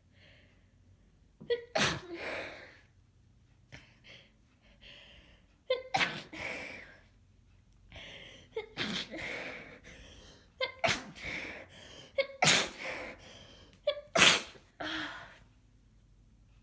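A congested person with a head cold sneezing repeatedly in a fit, about six sharp sneezes a couple of seconds apart, with quick sniffs and breaths between them.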